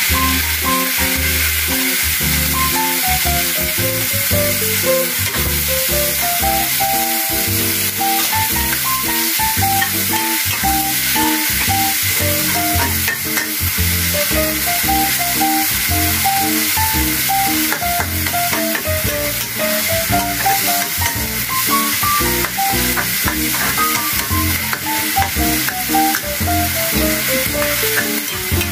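Young tamarind chili paste sizzling in hot oil in a wok, with a metal spatula scraping and stirring it in short strokes, over background music with a melody and bass.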